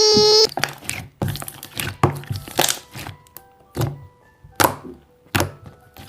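A drawn-out, high-pitched child's 'hi' cuts off about half a second in. Then come about nine irregular knocks and taps, with faint music underneath.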